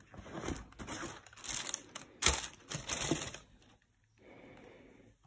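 Shoebox being opened and tissue paper rustled as a trainer is lifted out: a run of irregular crinkling and rustling with a sharp snap about two seconds in, then a fainter rustle.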